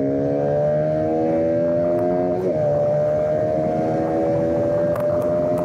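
Bajaj Pulsar RS200's single-cylinder engine pulling under acceleration, its pitch climbing slowly, dropping sharply once about two and a half seconds in at an upshift, then climbing again in the next gear.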